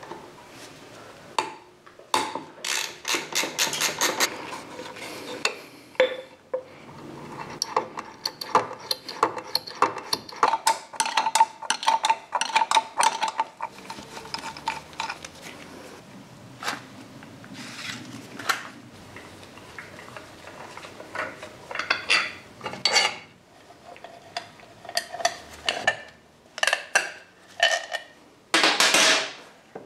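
Socket ratchet clicking in quick runs as bolts are undone on a Harley Sportster, with metal tools and parts clinking between turns. A louder clatter comes near the end.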